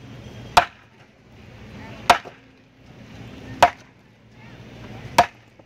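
Four hammer blows about one and a half seconds apart, each a single sharp crack.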